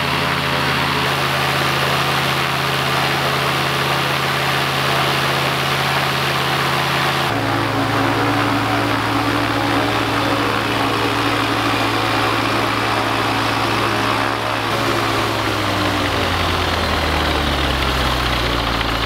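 Rotax 912 ULS four-cylinder aircraft engine with propeller running steadily on a test stand during its break-in run, with brand-new cylinders, pistons and rings. The revs are held up for the rings to seat. Near the end the revs fall away.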